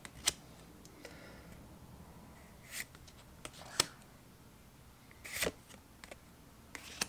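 Pokémon trading cards being flipped through in the hand, one slid off the stack at a time: a handful of short, sharp card flicks and snaps spread a second or two apart, with quiet room tone between.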